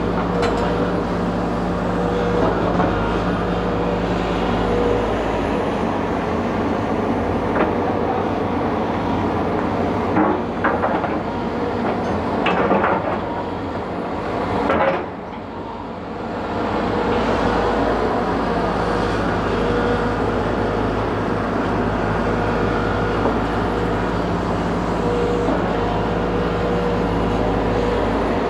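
Hidromek 220 LC hydraulic excavator running, its diesel engine humming steadily as it works soil. A few clanks come about a third of the way in, and the engine sound drops briefly near the middle before picking up again.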